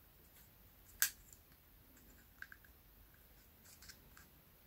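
Small precision screwdriver clicking against the plastic body of a spinning reel while working a stiff screw at the bail-arm pivot: one sharp click about a second in, then a few fainter clicks.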